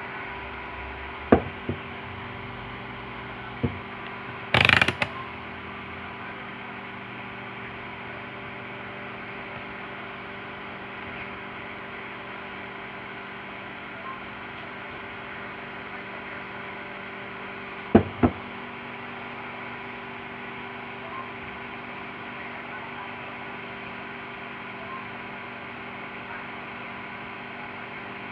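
Steady electrical hum with several fixed tones, broken by a few sharp clicks and one brief scraping rattle of something being handled on a workbench.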